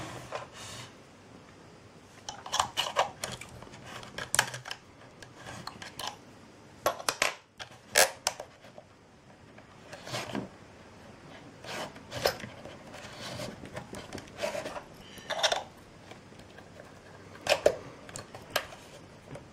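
Knife blade and small screwdrivers scraping and clicking against the plastic case of an Iomega external hard drive as it is pried apart along its side seam. The clicks and scrapes are irregular and come in short clusters.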